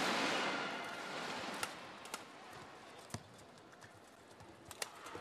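Arena crowd noise dying away over the first couple of seconds, then a doubles rally in which rackets strike the shuttlecock several times, each a sharp crack, irregularly spaced.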